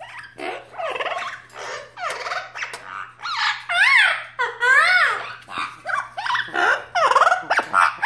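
Parrot calling and squawking over and over, with a few loud rising-and-falling whistled calls in the middle.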